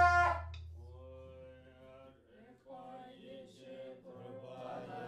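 Tibetan Buddhist ritual: loud horns stop just after the start, and from about a second in a group of voices chants a liturgy, low and slow with held notes.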